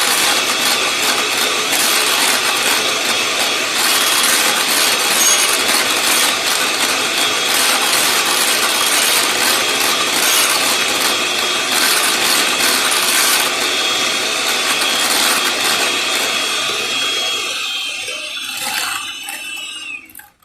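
Electric mixer whipping chantilly cream (milk and whipped-topping powder), its motor running steadily with a high whine. Near the end the whine drops and the motor stops, the cream now whipped stiff.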